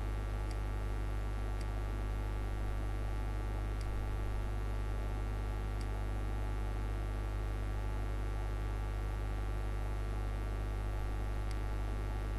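Steady electrical mains hum on the recording, with a few faint clicks scattered through it, fitting mouse clicks.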